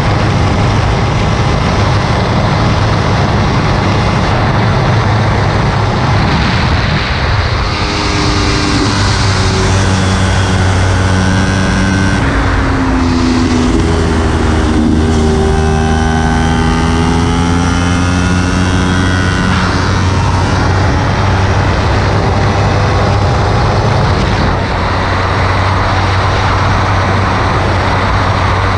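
Kawasaki Ninja 300's parallel-twin engine running hard on a track lap, heard from on board under heavy wind rush on the camera microphone. The engine note falls and shifts pitch through the middle as the bike slows and leans through a corner, then climbs again as it accelerates out.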